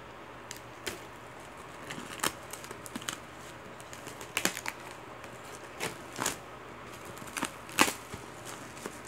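Plastic shrink-wrap crinkling and crackling as it is pulled off a DVD box set by hand, in irregular sharp crackles and clicks.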